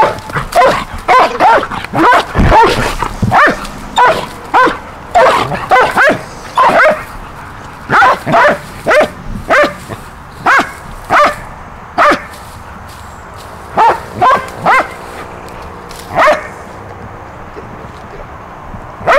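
Dogs barking repeatedly while they play and wrestle: short, loud barks, about two a second at first, then more spaced out, with a pause of a couple of seconds near the end.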